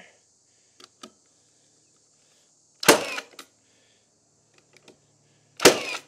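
Framing nailer firing two nails into a built-up 2x12 garage door header, one about three seconds in and one near the end, each a single sharp bang. A couple of faint clicks come about a second in.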